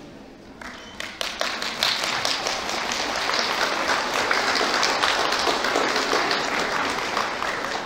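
Audience applauding. The clapping starts about a second in, holds steady, and tapers off near the end.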